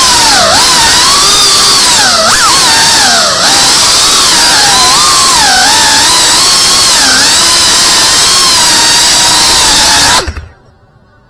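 Brushless motors and propellers of a GEPRC Cinelog 35 V2 FPV cinewhoop drone, a loud whine that rises and falls in pitch with the throttle. It cuts off suddenly about ten seconds in as the motors stop.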